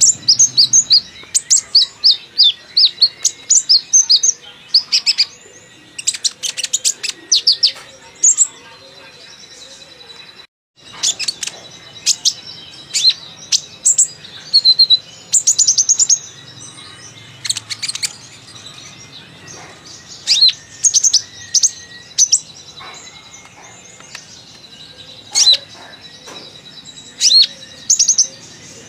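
Kolibri ninja sunbird singing in quick runs of high, thin chirps and twittering notes, over and over with short pauses. The song cuts out for a moment about ten seconds in.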